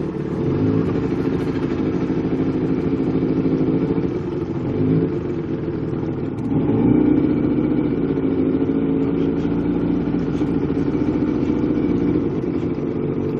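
Motorboat engine running steadily, with short throttle changes about half a second and five seconds in, and a louder, higher run from about seven seconds on.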